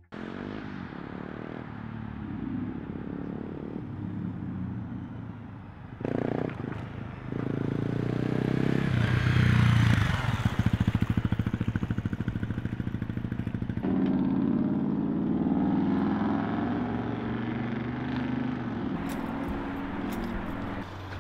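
Dirt bike engine running as the bike rides up, loudest about ten seconds in, then dropping to a quick, even beat and running steadily. A few sharp clicks come near the end.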